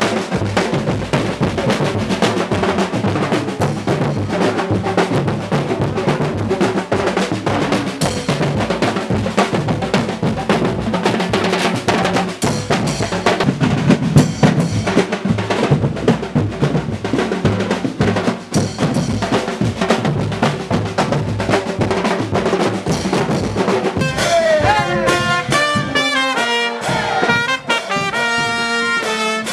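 Street band music: marching drums and cymbals playing a busy, driving beat, with brass horns coming in on a melody near the end.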